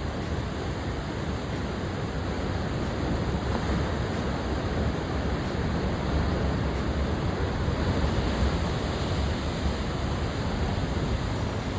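Steady rush of ocean surf on the shore, mixed with wind on the microphone.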